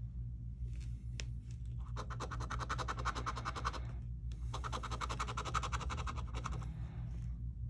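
A coin scratching the latex coating off a scratch-off lottery ticket: a brief light scrape about a second in, then two long runs of rapid back-and-forth strokes with a short pause between them.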